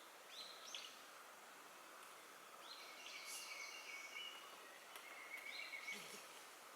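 Birds calling faintly over a steady outdoor hiss: short sweeping high notes about half a second in and again near the end, and trilled phrases through the middle.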